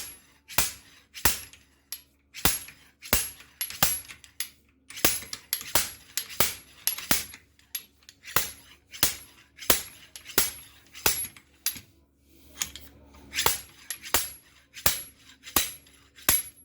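Repeated sharp metallic clanks of a slide hammer screwed into a main bearing cap of a 1963 Austin-Healey six-cylinder engine, struck about every two-thirds of a second with a bright ringing note, working the tight cap loose.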